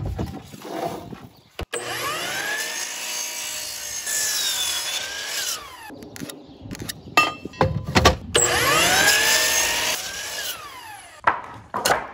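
Electric miter saw making two angled cuts through a 4x4. Each time, the motor spins up with a rising whine, the blade cuts through the wood, and the whine falls away as it winds down. Short knocks of the timber being shifted on the saw come between the cuts.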